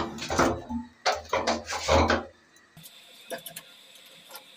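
25-litre electric geyser knocking and scraping against the wall as its mounting-bracket slots are hooked onto the wall fixings: a quick run of clattering knocks for about two seconds, then only a few light taps.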